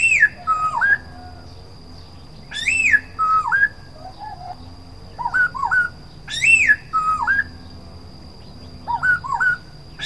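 Black-throated laughingthrush singing: loud, clear whistled phrases repeated every couple of seconds. Short runs of two or three quick upslurred notes alternate with longer phrases that open on a strong rising-then-falling whistle and end in lower slurred notes.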